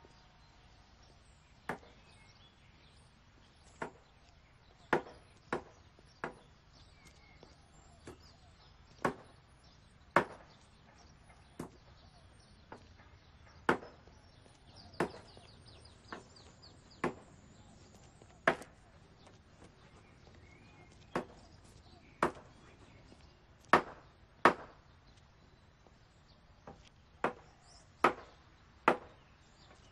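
A blade chopping on wood in single strokes at an uneven pace, roughly one every second or so, each a short sharp knock over a faint steady background.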